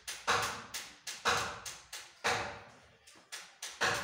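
Background music with a steady percussive beat, sharp hits about once a second with lighter ones in between.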